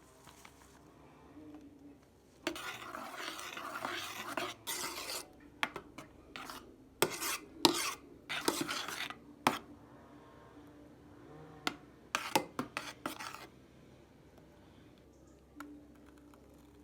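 Dishes and metal utensils being handled: a few seconds of scraping, then a series of sharp clinks and knocks.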